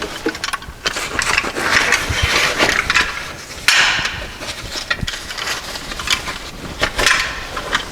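Rustling, clicks and knocks of items being handled and moved about in a car boot, with a sudden rustling burst a little over halfway through.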